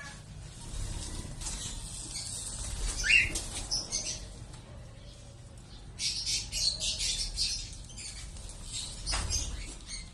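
Lovebirds fluttering and flapping their wings, with a short rising chirp about three seconds in and a run of quick, high rustling and chattering over a couple of seconds near the middle.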